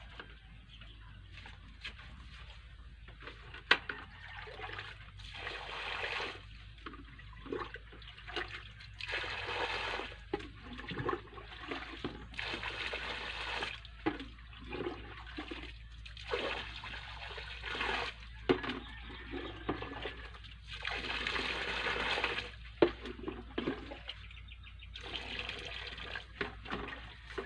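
Water poured from a plastic scoop onto a pile of sand, again and again, each pour a second or two long, with a few sharp knocks between pours.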